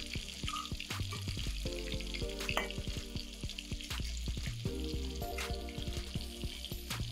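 Masala-coated fish pieces shallow-frying in hot oil, sizzling steadily with frequent small crackles. Soft background music plays underneath.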